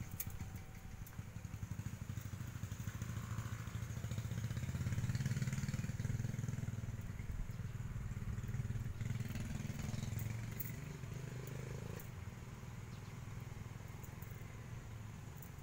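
A passing motor vehicle's engine: a low rumble that grows loudest about five seconds in and then slowly fades. A few light clicks of aluminium training wire being handled sound over it.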